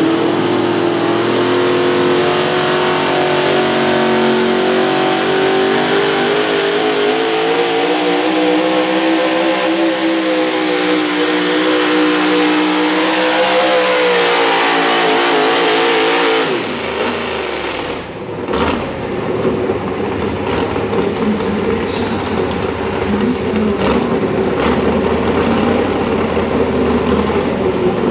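A 4WD pulling truck's engine at full throttle, held at high revs with the pitch wavering for about sixteen seconds, then the revs drop sharply as the throttle comes off at the end of the pull; the engine then runs lower and rougher, with a few sharp clicks.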